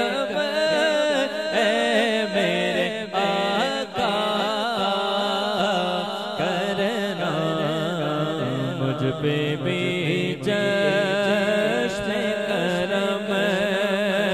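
A man singing an Urdu naat into a microphone, drawn out in long melismatic phrases with wavering, held notes.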